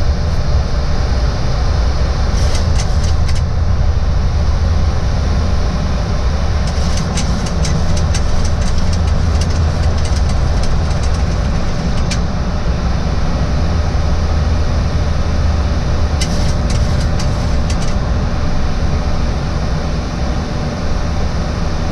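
Steady airliner flight-deck noise, a loud low rumble of airflow and engines. Over it come three runs of quick clicks as a knob on the glareshield autopilot panel is turned, the longest in the middle.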